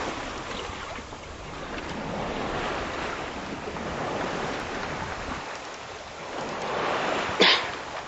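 Sea water rushing and waves washing past a sailing yacht's hull under way, with wind buffeting the microphone. The noise swells and fades twice, and a sudden loud slap comes near the end.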